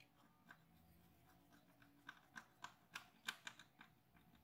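Faint, irregular small clicks of a screwdriver working the screws that hold a laptop's cooling fan down, clustered in the second half.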